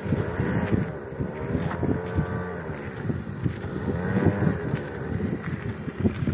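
Small motor scooter engine running as the scooter rides closer, its pitch rising and falling several times with the throttle.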